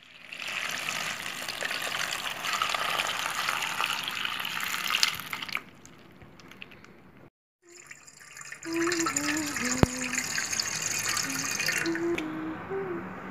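Tap water running into a metal pot as vegetables are rinsed. It comes in two stretches of a few seconds each, with a pause between.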